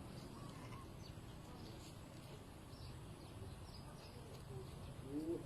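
Faint outdoor ambience: small birds chirping now and then over a low steady hum, with a short, louder arching call near the end.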